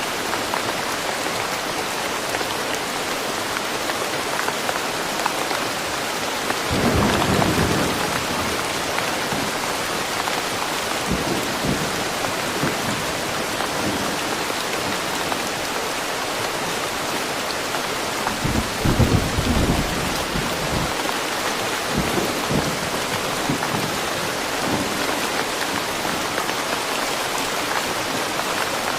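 Steady rain falling in a forest, with short low rumbles about seven seconds in and again near twenty seconds.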